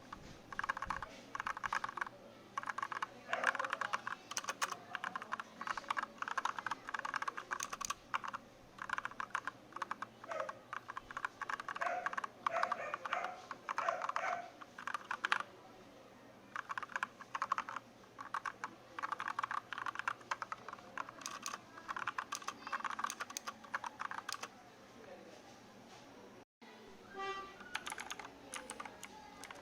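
Typing on a Redragon Kala K557 mechanical keyboard fitted with Gateron brown switches: quick runs of keystrokes separated by short pauses, breaking off for a moment near the end.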